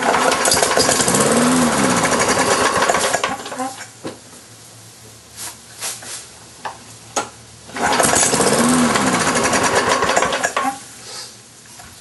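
Briggs & Stratton lawn mower engine firing up and running for about three seconds, its speed rising and then falling away as it dies; it happens twice, with a few knocks in between. It is a hard start: a loose kill-switch wire is shorting out the ignition.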